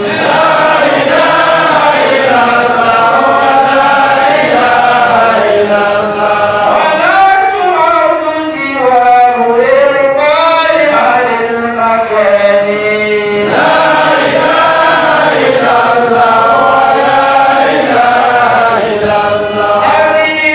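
A man chanting solo into a handheld microphone in long, held melodic lines, with slow ornamented rises and falls in pitch.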